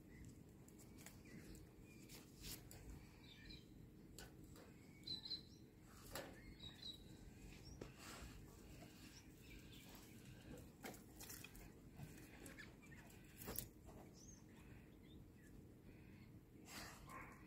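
Near silence: a dog sniffing faintly and scuffing about while searching for hidden treats, with a couple of brief bird chirps.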